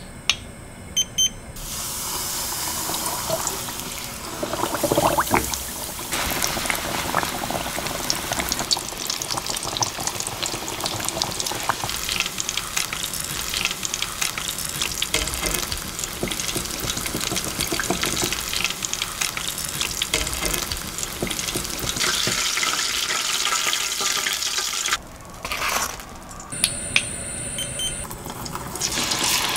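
Battered chicken leg deep-frying in hot oil in a small pot: a steady, dense crackle and sizzle of bubbling oil full of tiny pops. Near the end it drops away briefly, then the sizzle starts again as the leg goes back into hotter oil for its second fry.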